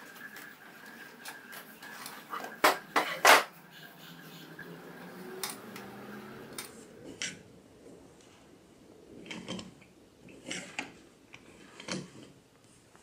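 Knocks and clatters of a plywood hold-in jig being handled and adjusted on an aluminium table saw fence rail. Three sharp knocks come close together about three seconds in, followed by a few lighter, scattered knocks.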